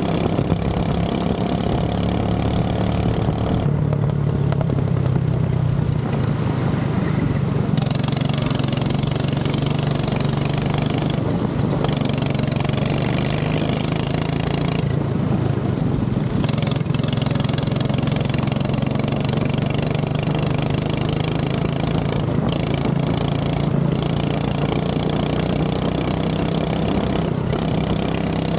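Go-kart engine running steadily, its pitch drifting up and down a little.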